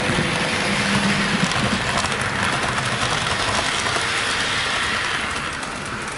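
Model train running on track: a steady mechanical whirr and rattle of motor and wheels, easing off a little near the end.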